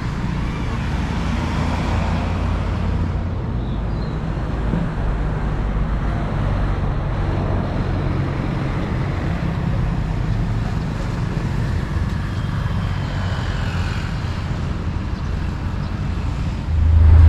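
Road traffic passing along a street: a steady rumble of cars and motorbikes going by. Near the end it switches abruptly to a louder, steady low engine drone.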